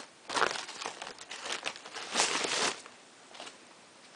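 Packing wrap crinkling and rustling as it is handled, in several bursts over the first three seconds, then one brief rustle near the end.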